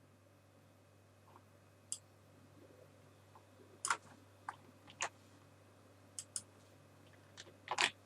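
Scattered clicks of a computer mouse and keyboard, about a dozen at irregular intervals with a small cluster near the end, over a faint steady low hum.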